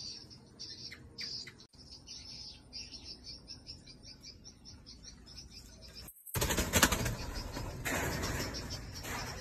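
Insects chirping in a fast, even pulse, then from about six seconds in a loud, close rustling and crackling that drowns them out.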